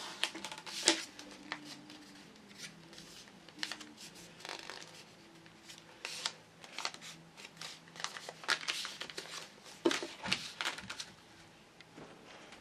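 Sheet of letter-size paper being folded and creased by hand along a plastic ruler: irregular rustling, crinkling and short scraping sounds as the fold is pressed and reversed.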